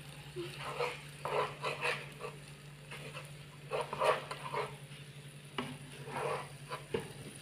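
Spatula stirring and scraping stir-fried flat rice noodles (kwetiau) in a frying pan, with a light sizzle of frying; irregular strokes, one or two a second.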